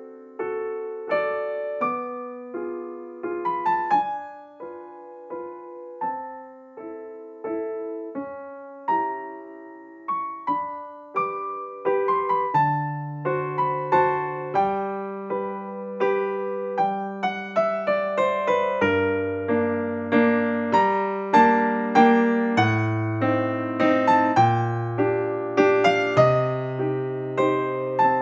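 Background music: a gentle piano tune of single struck notes that fade away. Deeper bass notes join a little before halfway.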